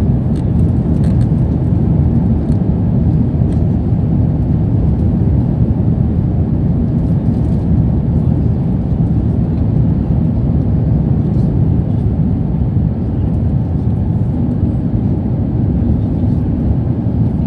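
Steady cabin roar of an Airbus A350-900 climbing out after takeoff, heard from a seat over the wing: its Rolls-Royce Trent XWB engines and the rush of air past the fuselage, an even, low rumble with no change in pitch.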